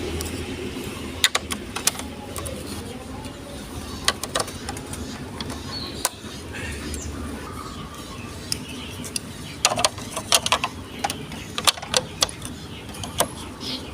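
Sharp plastic clicks and clatters from a Lego Duplo block marble run, marbles and blocks knocking together in irregular clusters of quick clicks over a steady low background hum.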